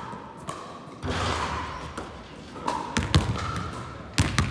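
Basketball dribbled on an indoor sports-hall court: a handful of sharp bounces at irregular spacing, with brief squeaks between them.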